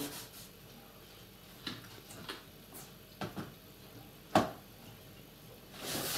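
Carrot being grated by hand on a metal grater: a few short, scattered scrapes and taps, the loudest about four seconds in, then a longer scrape near the end.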